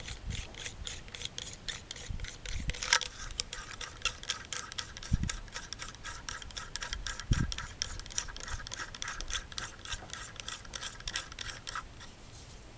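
Huntertown Arms Kestrel 556 suppressor's metal tube being screwed back together by hand: a fast, scratchy ticking of threads turning, with a sharper click about three seconds in and a few dull bumps.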